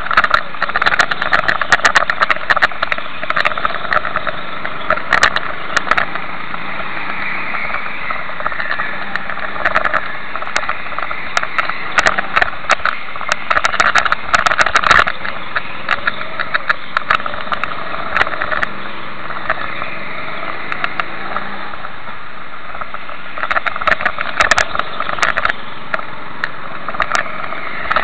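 Go-kart engines running on an indoor karting track, heard from a camera carried on or in a kart, with frequent sharp clicks and rattles from the camera and kart chassis.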